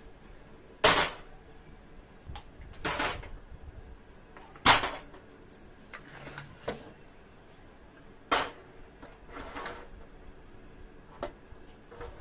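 Aluminium pressure cookers being set down one after another on a gas stove's burner grates: about five metal clanks a second or few apart, with a few lighter knocks between them.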